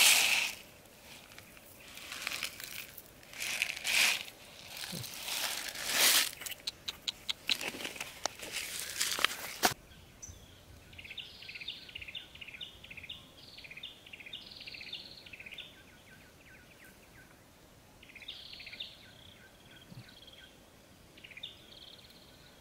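Grain poured from a small plastic bottle onto dry ground, rattling and pattering in bursts with a quick run of ticks, stopping suddenly about ten seconds in. After that a small bird sings in repeated short chirping phrases.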